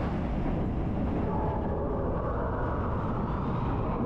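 Expedition Everest roller coaster train running along its track, a steady low rumble with a faint high whine coming in about a second in.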